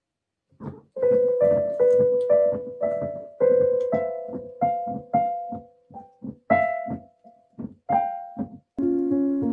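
Electronic keyboard in a piano voice, single notes struck one at a time in an uneven, halting line as a cat's paws press the keys. In the last second it gives way to different, steady music.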